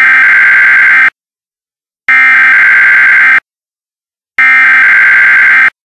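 Emergency Alert System SAME header: three bursts of electronic data tones, each a little over a second long with about a second of silence between them. The header marks the start of an alert broadcast.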